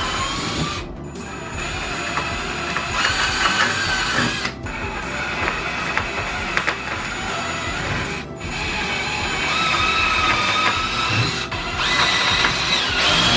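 Power drill whining in runs that shift in pitch with trigger speed, drilling into plywood, in several short stretches cut off abruptly.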